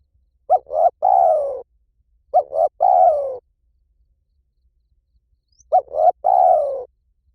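Spotted dove cooing: three phrases, each two short coos followed by a longer coo that falls in pitch, with pauses of a couple of seconds between phrases.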